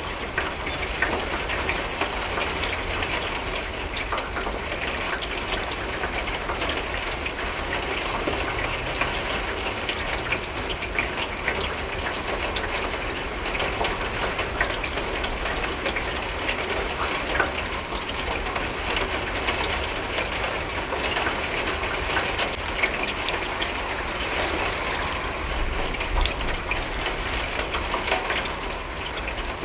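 Rain falling on a window: a steady hiss full of small drop ticks over a low rumble.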